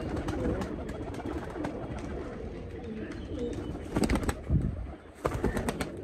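Domestic pigeons cooing steadily in the loft, with a flurry of wing flaps about four seconds in and another just before the end as young pigeons are released from the hand and take off.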